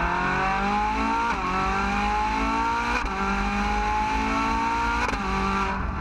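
A car engine accelerating hard through the gears: its pitch climbs steadily, then drops at an upshift about a second and a half in and again about five seconds in.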